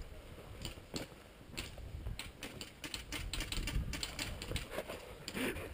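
Boots crunching on gravel: a quick, irregular run of small clicks and scuffs, busiest in the middle.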